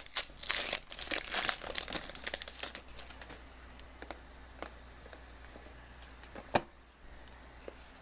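Crinkling and tearing of the shiny wrapper on a trading card pack being opened by hand, busiest in the first three seconds. Then quieter handling follows, with scattered light clicks and one sharper click about six and a half seconds in.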